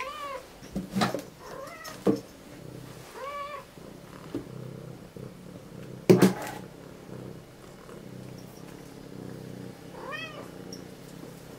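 Domestic cat meowing four times, short calls that rise and fall in pitch. A few sharp knocks come between the calls, the loudest about six seconds in.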